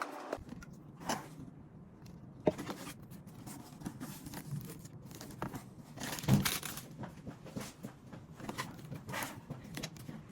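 Rustling, crinkling handling noises with scattered small clicks and a louder thump about six seconds in.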